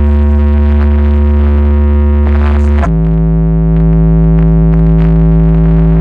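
Loud music played through a Fiat Uno's car sound system: two long held synthesizer notes with heavy bass, the pitch stepping down about three seconds in.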